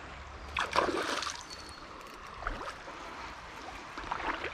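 Water splashing as a hooked fish thrashes at the surface, loudest about a second in, with smaller splashes later.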